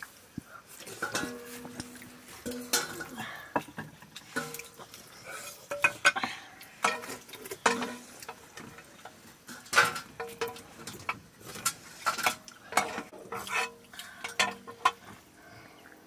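Hands eating rice from metal plates on the floor: irregular clinks and scrapes of fingers and plates against metal, some plates ringing briefly after a knock.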